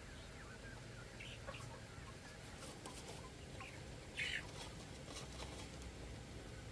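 A flock of young domestic chickens clucking and cheeping faintly, in short scattered calls, with one louder, sharp sound about four seconds in.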